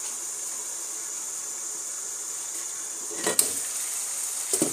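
A steady hiss of pots cooking on the stove, broken by two short knocks, about three seconds in and again near the end, as a glass pot lid is lifted and handled against the pot.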